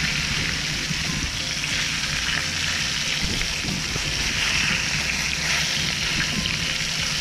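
Breaded fish pieces sizzling steadily in hot cooking oil in a skillet, with a low rumble underneath.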